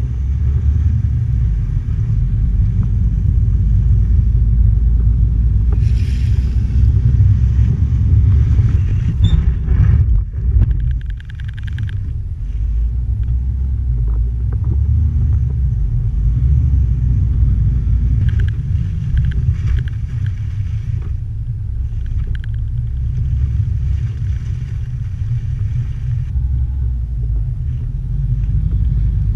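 Steady low rumble of a vehicle moving along a snow-covered street, picked up by a vehicle-mounted action camera. It drops briefly about ten seconds in.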